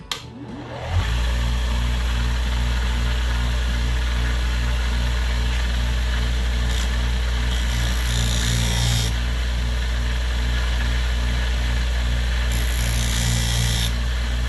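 Homemade bench sander-grinder, driven by a quarter-horsepower microwave oven exhaust fan motor, running with a steady electric hum; it comes up to speed about a second in. A higher hiss rises over the hum twice.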